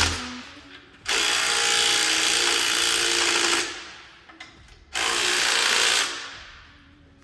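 A power tool run in two bursts, the first about two and a half seconds long and the second about a second, each trailing off when it stops.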